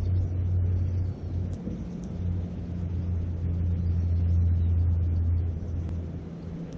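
Low, swelling rumble of wind buffeting the microphone over a steady rushing river. Small sharp crackles come from a wood campfire, thickest near the middle.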